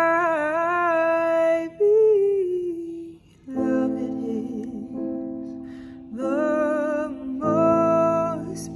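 A woman singing a slow worship song in long held phrases over a soft, sustained instrumental accompaniment, with a brief pause about three seconds in.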